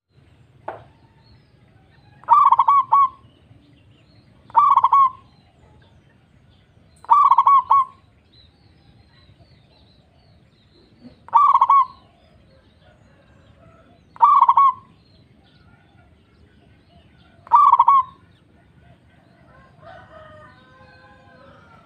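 Zebra dove (local Indonesian perkutut) cooing its song: six phrases a few seconds apart, each a quick run of ringing notes. There is a fainter scratchy sound near the end.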